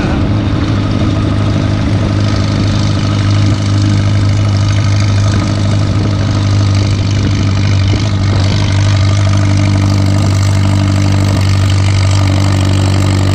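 McCormick-Deering Super M tractor's four-cylinder gasoline engine running steadily at an even pitch as the tractor drives down the road, heard from the seat through its open vertical exhaust stack.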